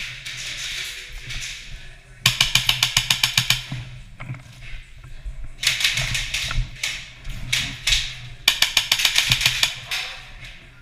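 Airsoft electric guns firing full-auto, three rapid bursts of about a dozen shots a second, about two seconds in, near the middle and near the end.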